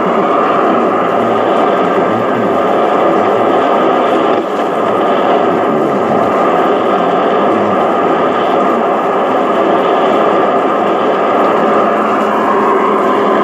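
Yaesu FRG-8800 shortwave receiver tuned to 10140 kHz, its loudspeaker giving a steady, heavily noisy and garbled signal: an intermodulation product of a Chinese shortwave broadcast, buried in static. The sound dips briefly about four and a half seconds in.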